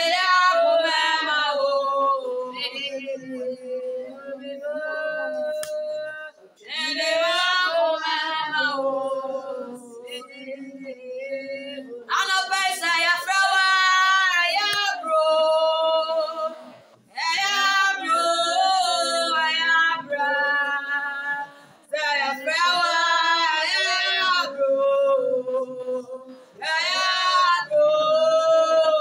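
Women singing an unaccompanied worship song in sung phrases of a few seconds each, with short breaks between.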